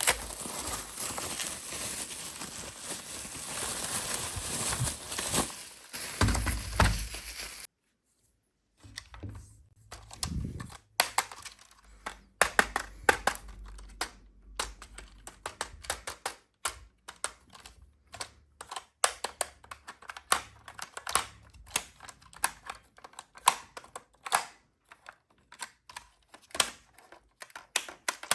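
Plastic packaging crinkling for the first several seconds, then after a sudden cut to brief silence a long, irregular run of light clicks and taps of plastic parts being handled.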